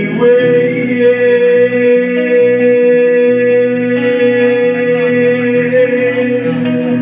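Live music: plucked guitar with a long, steady held note over it and changing lower notes beneath.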